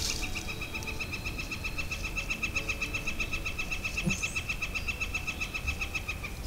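A single long animal trill at one steady pitch, about ten even pulses a second, lasting about six seconds before it cuts off near the end.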